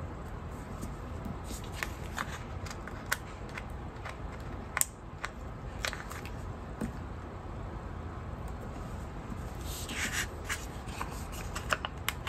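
Light clicks and taps of metal tweezers picking at a paper sticker sheet, with crinkling of the sheet as it is flexed, briefly louder about ten seconds in.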